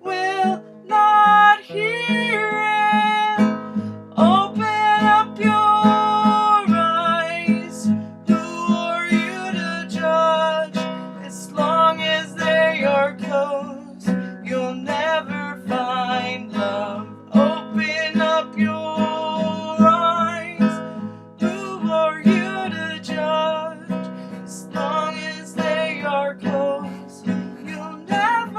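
Music: acoustic guitar strumming steadily, with a wavering melody line over it and no sung words.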